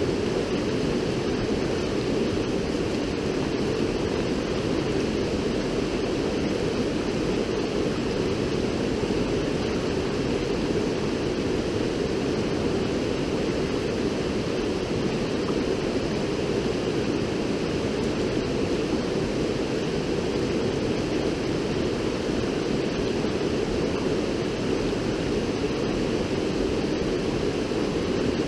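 River water rushing steadily, a constant even roar strongest in its low-middle range.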